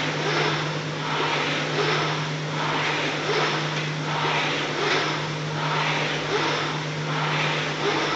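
Concept2 indoor rowing machine's air-resistance flywheel whooshing, surging with each stroke at about one stroke every one and a half seconds, over a steady low hum.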